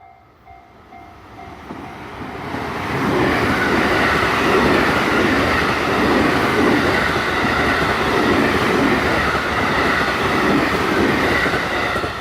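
JR West 223 series electric multiple unit passing over a level crossing: the train's rumble builds over the first three seconds, stays loud for about nine seconds, and drops away near the end. The crossing's pulsing alarm bell can be heard at the start before the train drowns it out.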